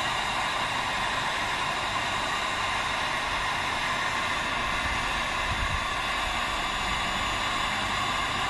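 Electric heat gun blowing steadily, an even airy rush, as it shrinks heat-shrink tubing onto a crimped welding-cable connector.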